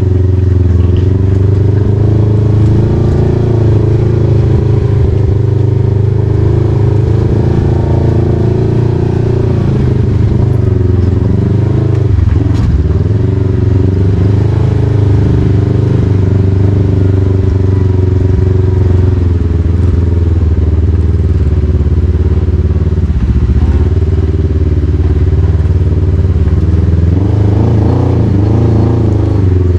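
Kawasaki KRX side-by-side's engine running steadily at low revs while crawling over a rocky trail, its pitch rising and falling a little as the throttle changes.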